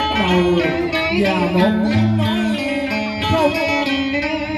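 Guitar playing a melodic line of held notes that slide and bend between pitches, in Southern Vietnamese đờn ca tài tử style.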